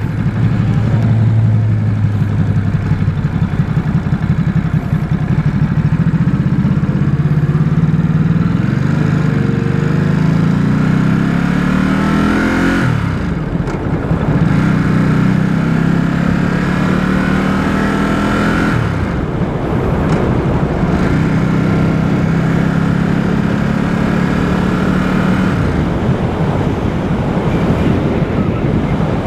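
Stock 2018 Ducati SuperSport S's 937 cc L-twin engine running on the road. The revs climb steadily, drop sharply about halfway through, climb again, drop once more about two-thirds in, then hold fairly steady.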